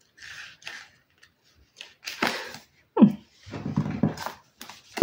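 Paper pages of a small paperback guidebook rustling and flicking as it is handled. About three seconds in comes a falling growl and then a low rumble: a hungry, empty stomach growling.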